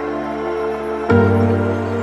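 Background music: soft, sustained new-age style chords, with a new chord coming in about a second in.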